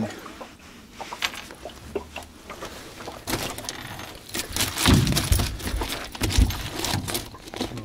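A landing net with a trout in it being handled in a boat: faint rustling and clicks, then from about three seconds in a busy clatter of knocks and clicks with a couple of heavy thumps.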